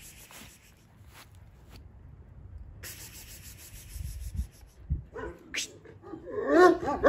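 Soft rubbing and rustling for the first few seconds. From about five seconds in, a dog lets out a quick run of short barks, several a second, that grow loud near the end.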